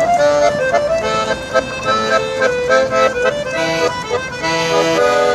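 Accordion music: a quick melody over held lower notes.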